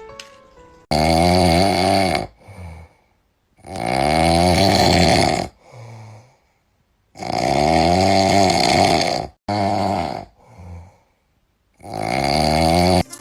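An animal snoring loudly: four long snores about three to four seconds apart, each followed by a shorter, quieter breath.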